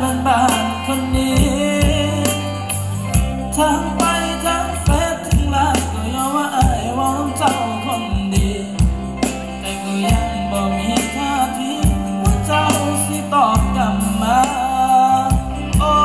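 Live band playing a slow Thai song: a singer's voice over a steady bass line and percussion.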